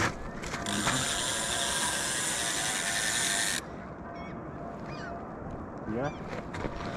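A fishing reel's drag buzzing loudly as a hooked fish pulls line off, cutting off suddenly about three and a half seconds in. After it, birds calling in short, quick notes.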